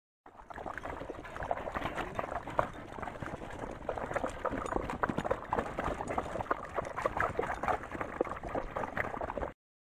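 Dogs lapping water from a pool on the rocks: a rapid, irregular run of wet laps and splashes.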